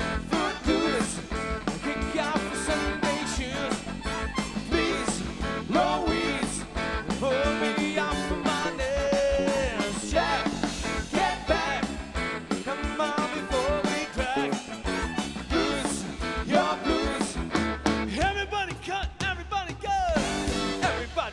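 Live rock band playing an instrumental passage: drum kit, bass, keyboard and electric guitar, with a lead line of bending notes.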